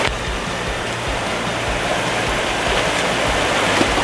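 Fast, shallow mountain stream rushing over rocks in a steady, even wash of water, with background music running underneath.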